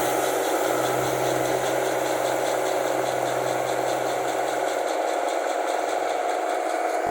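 Combine harvester's diesel engine running loudly through its free-flowing exhaust at a steady speed, with a fast even pulsing rattle over the engine note. It cuts off abruptly at the end.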